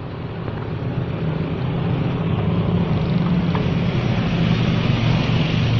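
Steady engine noise with a low hum, growing gradually louder.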